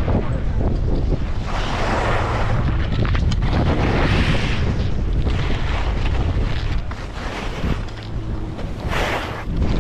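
Wind buffeting the microphone of a skier's action camera, with the hiss of skis scraping across snow swelling with each turn, loudest about two, four and nine seconds in.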